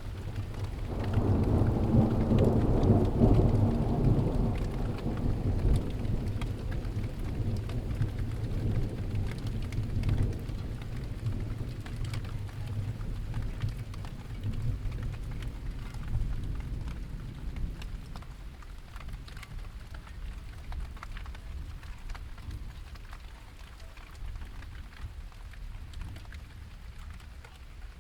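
Steady rain falling with scattered drop ticks, and a long, deep roll of thunder that swells about a second in and slowly fades away over the following fifteen seconds or so.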